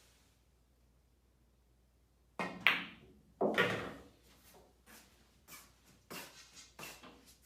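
Pool balls knocking on a billiard table. Two loud sharp clacks come a couple of seconds in and about a second apart, followed by several softer knocks.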